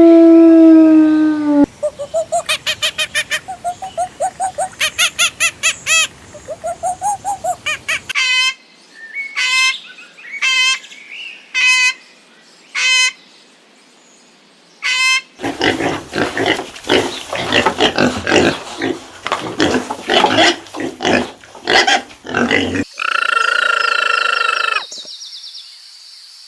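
A string of different animal calls edited one after another: a held call at the start, then a fast run of short pulsed calls, then single high chirps falling in pitch about a second apart, then a stretch of dense harsh calls, and a steady high call near the end.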